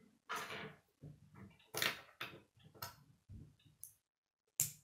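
K'nex plastic rods and connectors being picked up from a wooden tabletop and handled, giving a string of plastic clicks and clatters. A sharp click comes near the end as a piece is pushed into a connector.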